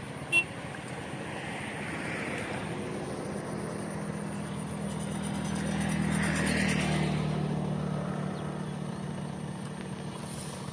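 A motor vehicle's engine humming as it passes, growing louder to a peak a little past the middle and then fading. A single sharp click comes just after the start.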